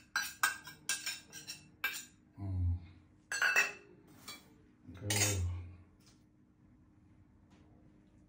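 Stainless steel bowls and utensils clinking against each other, a quick run of sharp clinks in the first two seconds, followed by three short low-pitched sounds spaced about a second apart.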